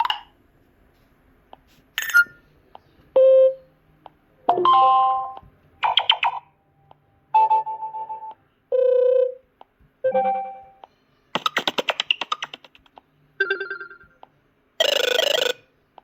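A Kyocera DuraForce Pro smartphone playing its built-in notification tones one after another: about eleven short chimes and jingles, each different, with brief pauses between them and a few faint clicks in the gaps.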